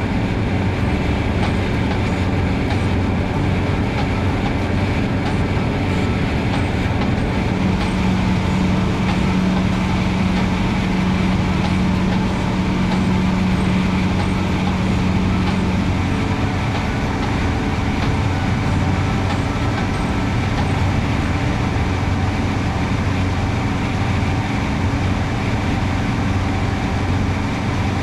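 Cessna 150's four-cylinder Continental O-200 engine and propeller droning steadily in cruise flight, heard from inside the cockpit. A somewhat higher steady hum joins in for several seconds in the middle.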